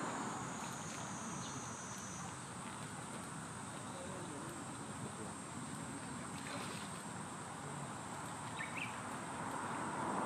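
Steady outdoor background noise with a faint, even high-pitched hum, and a couple of faint short chirps near the end.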